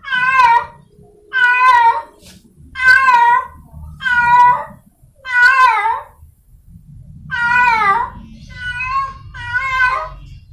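Cat in heat calling for a mate: a run of about eight short, wavering yowling meows, one roughly every second and a quarter, with a slightly longer gap after the fifth.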